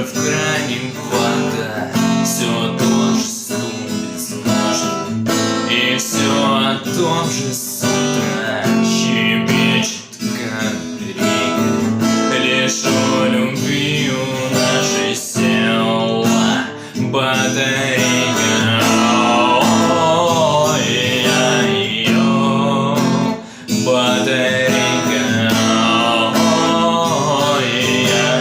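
Song played on strummed acoustic guitar, with a singing voice that wavers in pitch in places.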